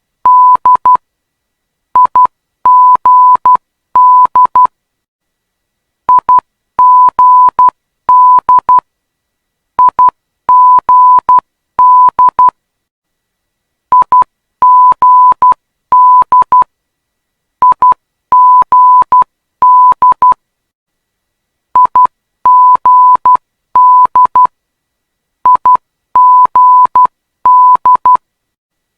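Morse code identifier of an ILS localizer: a single steady beep keyed into dots and dashes. The same short group of letters repeats about every four seconds, with a gap of silence between groups.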